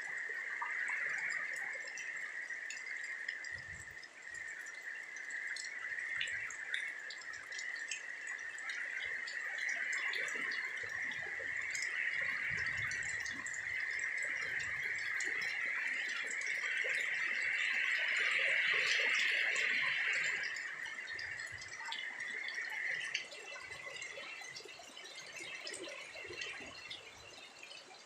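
Rain falling, with many scattered drips and taps, under a steady high-pitched drone that swells a little and then fades out about three quarters of the way through.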